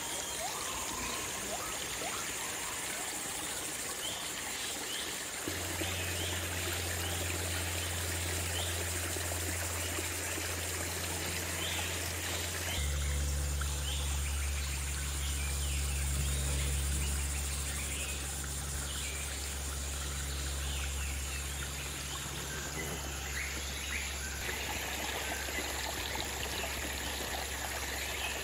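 Shallow stream trickling and running over rocks. A low, steady droning tone comes in about five seconds in and shifts lower around thirteen seconds in.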